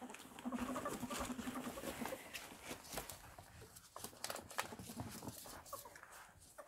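Two ferrets scuffling, a male in heat chasing a female: claws clicking and scrabbling on a laminate floor and rustling a nylon play tunnel. One of them gives a pitched call lasting about a second and a half, starting about half a second in.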